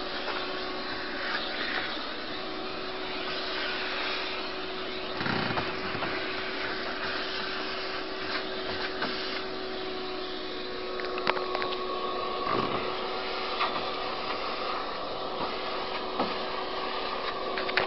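Shop vac running steadily with a constant hum, its nozzle knocking and clicking now and then as it is worked over a heat pump's evaporator coil to pull out loosened dust.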